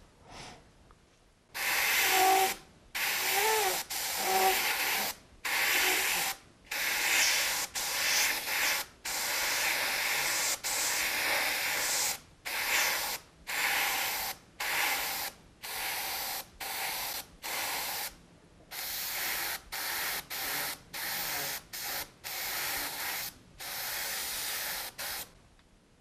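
Bottle-fed airbrush spraying paint in a long series of short hisses, each a second or two long, broken by brief pauses as the trigger is pressed and released, laying in fine feather detail.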